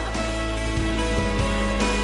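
Background music with held notes and a change of chord about a second in.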